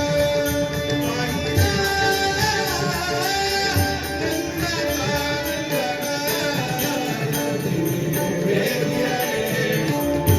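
Konkani devotional bhajan: a voice singing over instrumental accompaniment of steady held notes and percussion beats.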